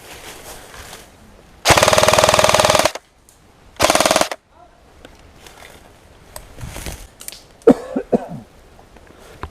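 Airsoft electric rifle firing two full-auto bursts: a rapid, even rattle lasting just over a second, then a shorter burst of about half a second.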